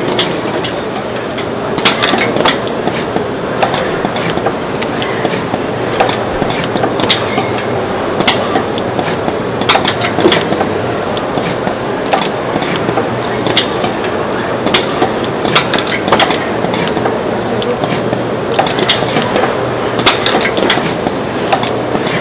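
Semi-automatic O-ring assembly machine with a pneumatic gripper running: a steady hum and hiss, broken by irregular sharp clicks and knocks from the gripper, actuators and rotary table, roughly one every second or two.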